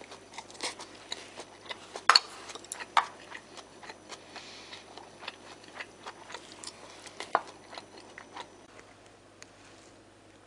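Chopsticks clicking and scraping against a ceramic rice bowl while rice is eaten from it: irregular sharp ticks, the loudest about two seconds in, growing sparser near the end.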